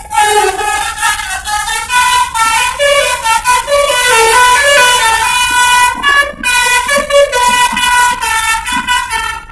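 Basuri V3 telolet bus horn playing a melody: a quick run of multi-tone horn notes jumping in pitch, with a short break about six seconds in.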